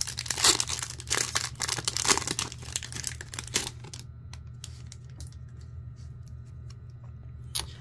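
Foil trading-card pack wrapper crinkling and tearing as a pack is opened, for about three and a half seconds, then quieter handling with a few scattered clicks.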